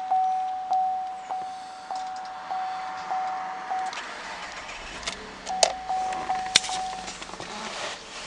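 Holden VF Commodore's in-cabin warning chime, one steady tone repeating about every 0.6 s, stops about four seconds in. Two sharp clicks follow a little later, with the chime briefly sounding again between them.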